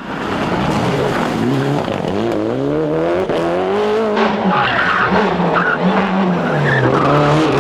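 Rally car at full throttle, engine pitch climbing hard, then dropping and stepping up and down through gear changes, with tyres skidding.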